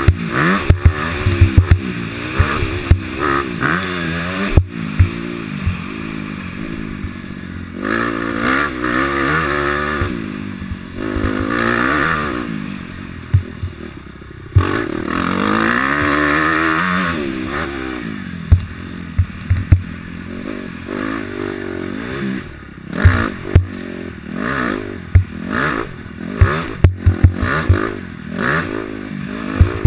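2012 Honda CRF250 four-stroke single-cylinder dirt bike engine revving up and down while ridden on a motocross track, its pitch rising and falling with throttle and gear changes. Frequent sharp knocks and clatter come through, most of them near the start and in the last several seconds.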